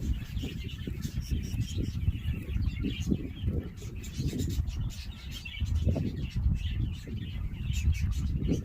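Small birds chirping repeatedly in short high notes, over a steady low rumbling noise.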